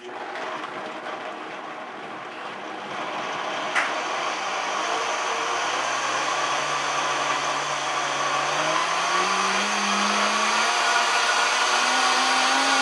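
Vitamix blender starting suddenly and running loud, blending soaked walnuts, hemp seeds and sea moss in hot tea. Its motor pitch steps up several times as the speed dial is turned higher. There is a single sharp click about four seconds in.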